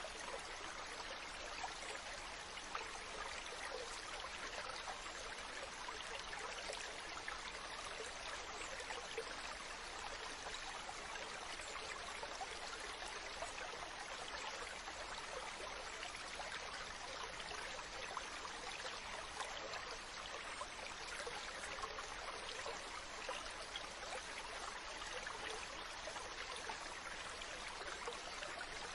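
Mountain stream running, a steady splashing rush of water over rocks with fine trickling detail.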